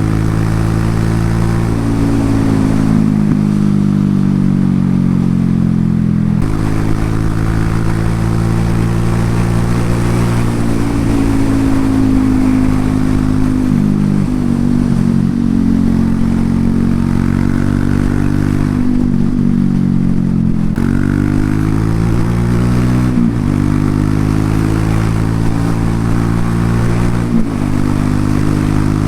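Exhaust of a Loncin LX250-12C, a 250 cc single-cylinder motorcycle, running under way. The engine note rises and falls with throttle, with several sudden changes in pitch as the rider shifts gears.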